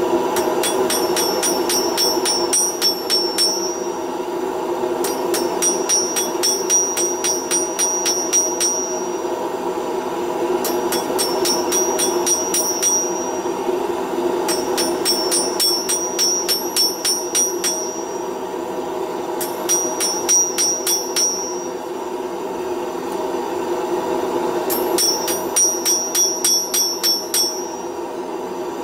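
Hand hammer striking a red-hot round steel bar on an anvil in quick runs of blows, six runs of a few seconds each, every blow leaving a high metallic ring. A steady roar from the gas burner heating the work runs underneath.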